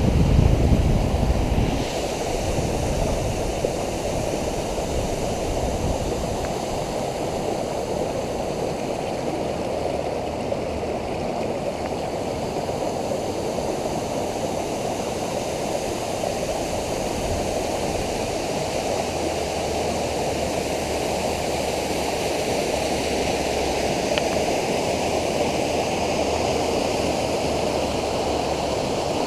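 Waterfall: a steady, unbroken rush of falling water. A louder low rumble sits under it for the first two seconds.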